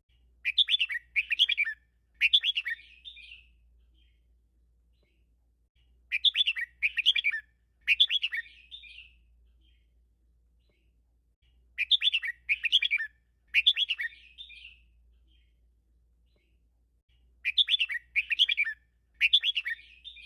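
Red-whiskered bulbul singing its 'double-three' song: four bouts about every six seconds, each three quick loud bursts of notes followed by a softer trailing phrase.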